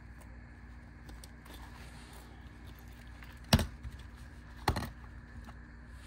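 Two sharp clacks of small hard objects being handled, about a second apart, the first the louder, each followed by a few lighter ticks, over a faint steady hum.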